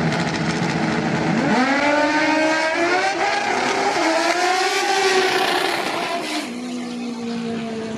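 Two drag-racing motorcycles launch off the line about one and a half seconds in, their engines revving up and climbing in pitch through several quick gear shifts, then fading as they run away down the strip. A steady lower engine note is left near the end.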